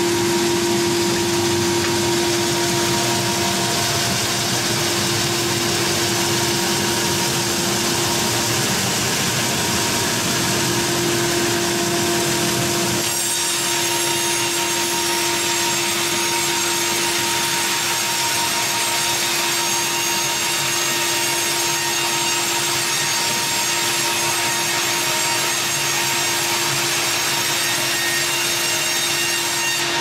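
Wravor WRC 1000 horizontal band sawmill running and sawing through a timber log, a loud steady noise with a constant hum. About halfway through, the low rumble falls away and thin high tones come in.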